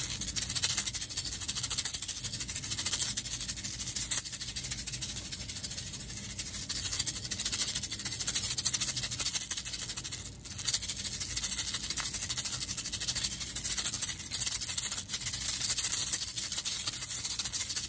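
A hand-held rattle shaken fast and continuously close to the microphone, with a brief break about ten seconds in.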